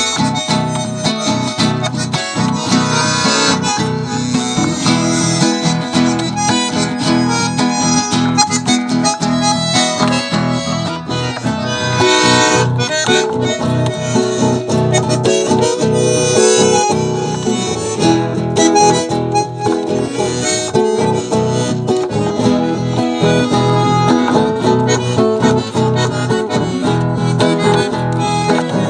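Acoustic guitar strumming and plucking together with a gaita, a free-reed instrument, playing an instrumental tune.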